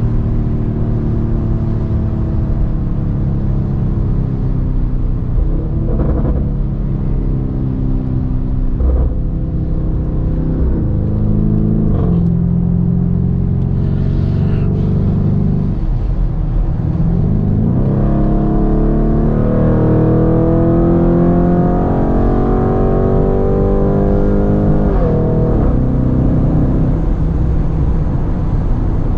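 Lamborghini Urus's twin-turbo V8 through a straight-pipe Capristo exhaust, engine speed sinking for the first half with a few sharp cracks about six, nine and twelve seconds in. From about sixteen seconds in it accelerates, the engine note rising and then dropping suddenly at a gear change near the end.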